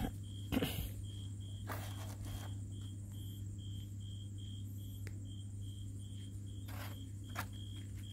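A cricket chirping steadily, about three short high chirps a second, over a steady low hum, with a few soft knocks.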